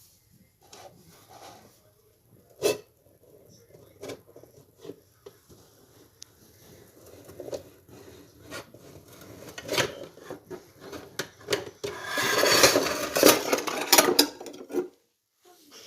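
Objects being handled: scattered clicks and knocks, one sharp knock about three seconds in, then a dense clinking clatter for a few seconds near the end.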